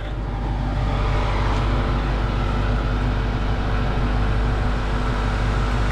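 A car engine running steadily: a low rumble with a faint even hum above it, unchanging throughout.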